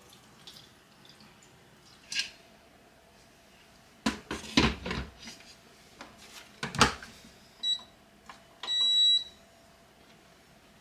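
Rice cooker's inner pot knocking into place and the lid snapping shut, followed by the cooker's control panel beeping: one short beep, then a longer one as the timer is set.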